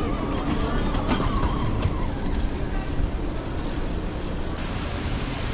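City street traffic noise on wet roads, with wind rumbling on the microphone of a moving bicycle. Two short sharp clicks come about a second and nearly two seconds in.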